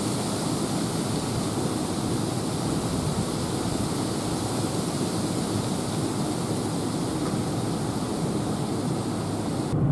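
Wind blowing across the microphone: a steady rushing noise that cuts off suddenly near the end.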